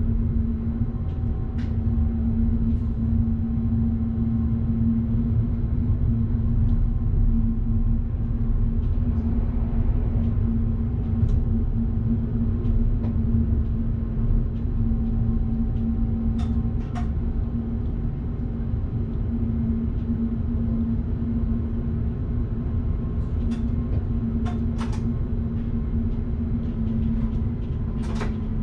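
Electric train running steadily, heard from the driver's cab: a constant low rumble with a steady hum. Sharp clicks and ticks come now and then, several of them near the end.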